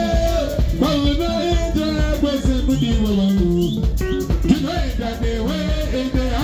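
Live band music: a male singer singing over electric bass guitar, with a steady beat of drums and rattling percussion.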